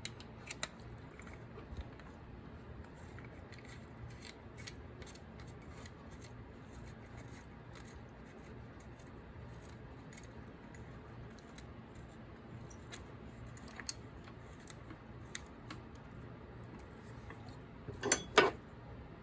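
Light metallic clicks and clinks of spray-gun parts and tools being handled over a faint steady hum, with a sharper click about 14 seconds in and a few louder metal clacks near the end.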